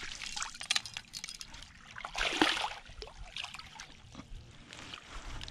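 River water splashing and sloshing in the shallows as a hooked asp is brought to hand, with one louder splash about two and a half seconds in.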